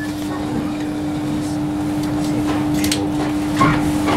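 Inside a Class 318 electric multiple unit: a steady electrical hum holding one constant tone over a background rumble, with a few faint knocks.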